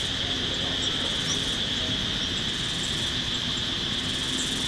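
A steady, high-pitched insect chorus drones without a break over an even low rumble.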